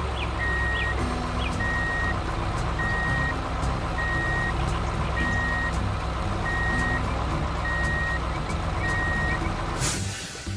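Reversing alarm of a heavy construction vehicle beeping at an even pace, one beep a little over every second, over the low rumble of its engine. It all stops abruptly just before the end.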